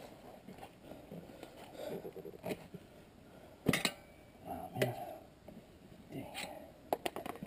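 Steel screwdrivers, used as tire levers, clinking against the spoked rim of a dirt bike's rear wheel and scraping the rubber tire bead as it is pried over the rim. Several sharp metallic clicks, the loudest around the middle, with a quick run of clicks near the end.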